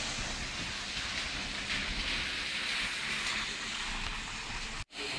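Steady hiss of rain falling on a wet street, which breaks off sharply for a moment near the end.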